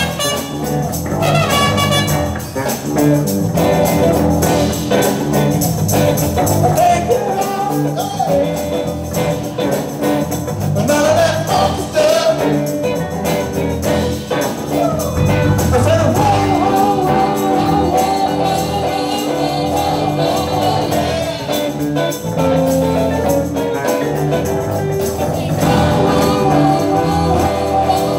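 Live band playing upbeat music with keyboard, drums and a shaken tambourine, a voice singing over it.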